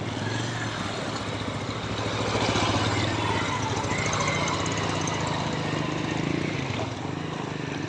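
Motorcycle engines running at low speed as motorbikes ride through floodwater, with water swishing and splashing around the wheels. The engine hum is steady and grows a little louder about two seconds in.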